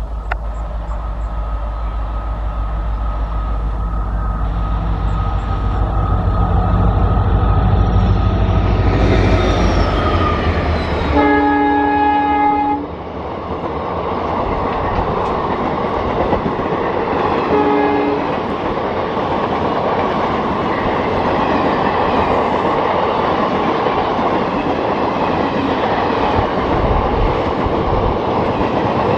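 A train approaching with a low rumble that builds, then one long horn blast about a third of the way in and a short second horn a few seconds later. After that, the steady rush and clickety-clack of the train's wheels on the rails as it runs past.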